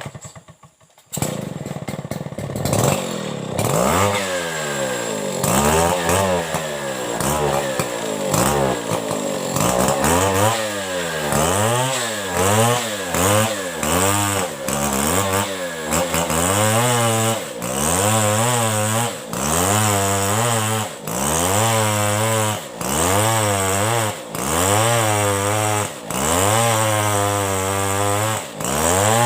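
Chainsaw cutting into a coconut log. It comes in loud about a second in. Its engine pitch then rises and falls in a regular cycle roughly every one and a half to two seconds as the chain bites into the wood and eases off.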